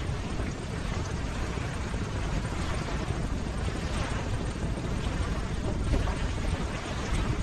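Ocean waves: a steady wash of surf noise, deepest and strongest in the low range, swelling and easing slightly.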